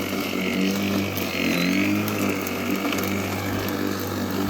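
Worx 40 cm battery lawnmower running steadily in turbo mode while mowing, a steady electric motor and blade hum with a brief rise and fall in pitch about a second and a half in.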